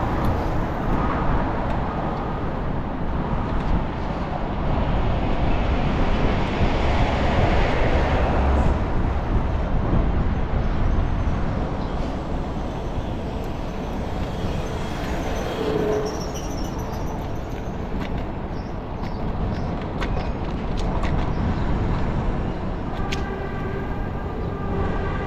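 Street traffic and wind noise heard while riding a bicycle, a steady rumbling wash of passing vehicles. Near the end a brief pitched tone sounds over it.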